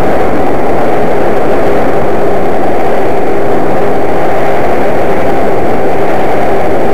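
In-flight audio from a small camera mounted on a homemade twin-motor foam RC plane: a very loud, steady rush of wind and electric-motor noise, with a faint steady hum from the spinning pusher props.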